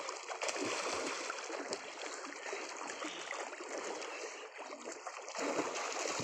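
Water in a well sloshing and rushing steadily, with small splashes scattered through it.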